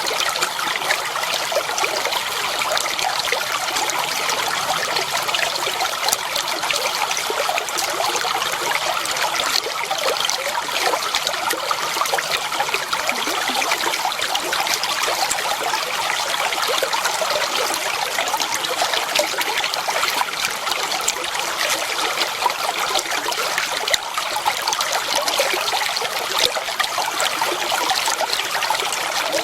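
Water flowing and trickling steadily, with a dense patter of small splashes and burbles.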